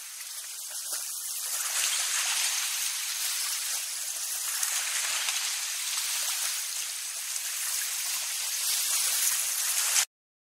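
Water sprinkler spraying: a steady hiss of spray that swells and eases, then cuts off suddenly near the end.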